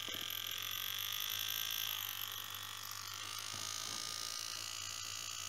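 Small handheld rotary tool with a router bit running with a steady high-pitched whine, being used to cut into a small plastic model-kit part; its tone changes about three seconds in as the bit is put to the plastic.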